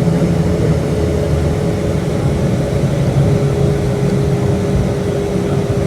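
Steady rumble of a Boeing 757-200 heard from inside the passenger cabin: engine and airflow noise with a steady tone running through it, which drops out briefly in the middle.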